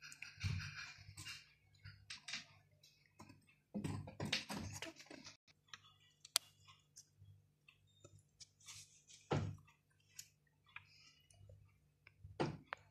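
Hands folding and pressing thin flour pancake wrappers closed on a plate, sealing the edges with a flour-and-water batter: scattered light clicks and soft rustles over a faint low hum.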